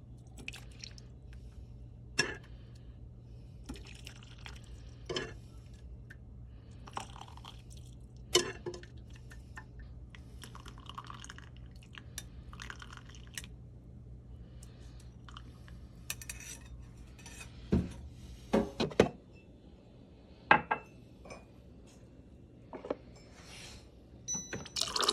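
Kitchenware clinking and knocking in scattered strikes, a spoon against glass jars and dishes, while ginger tea is made from ginger syrup. A cluster of louder knocks comes about three-quarters of the way through. A low steady hum runs underneath.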